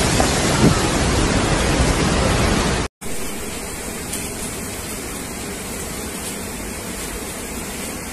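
Flash-flood water rushing down a street, a steady dense rush. It cuts out abruptly about three seconds in and comes back quieter.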